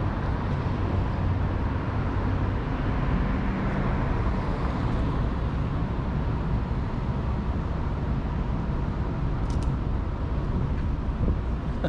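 City street traffic noise: a steady low rumble of cars and engines, with one short sharp click about three-quarters of the way through.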